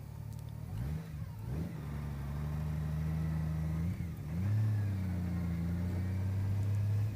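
Honda CBR600RR's inline-four engine revving under way in low gear: the pitch climbs twice, holds, drops and climbs again about four seconds in, then holds steady.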